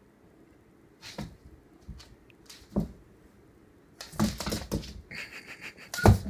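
A Doberman's paws and claws scrabbling and thumping on a laminate floor in a few separate bursts, with a quick flurry of clicks about four seconds in and a loud thump near the end as the dog drops down low.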